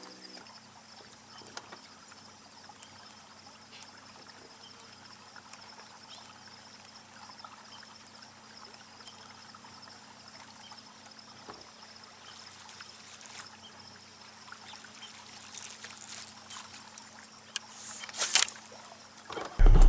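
Quiet open-water ambience from a fishing boat: a faint steady low hum under a high insect trill, with scattered soft ticks and small water sounds. Near the end come a few sharp, louder splashy pops, and right at the close a sudden loud low rumble sets in.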